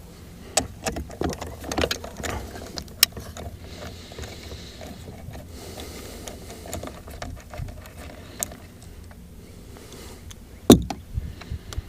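Irregular clicks and small knocks of a socket wrench and metal parts being worked on the handle bolt of a boat's remote throttle control, with a louder knock near the end.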